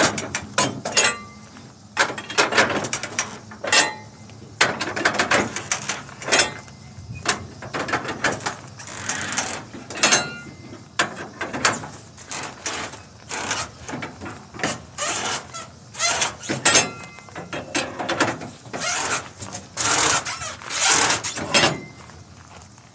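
Flatbed trailer strap winches being cranked tight with a winch bar, to tension the straps over a load of steel coils: repeated ratcheting clicks from the winch pawls, in short irregular bursts.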